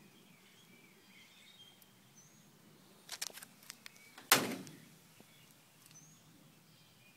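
Faint birds chirping in the background, a few light clicks about three seconds in, then one sharp knock about four seconds in that dies away over half a second.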